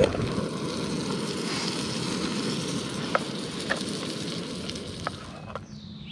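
Pancakes frying in butter in a camp frying pan, sizzling steadily, with a few light clicks as a plastic spork works the pan. The sizzle fades near the end.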